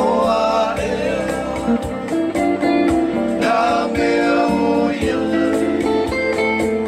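A Samoan sing-along song (pese o po'ula), sung to a steadily strummed guitar.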